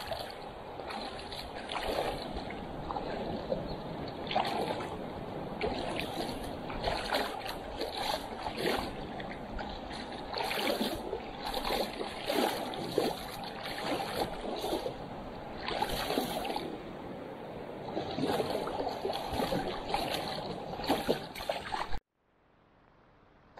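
River water splashing and sloshing, with many uneven splashes over a steady rush of water; it stops abruptly near the end.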